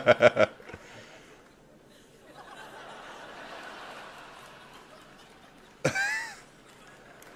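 A man laughing in quick, evenly spaced ha-ha pulses that stop about half a second in. After that there is a faint steady hiss, and a short, loud vocal cry about six seconds in.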